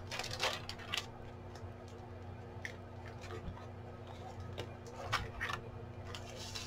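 Faint rustling and scraping of paper and plastic comic packaging being handled, in short bursts near the start and again about five seconds in, over a low steady hum.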